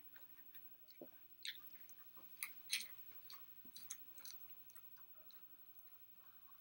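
Chewing of food: faint wet mouth clicks and smacks at irregular intervals.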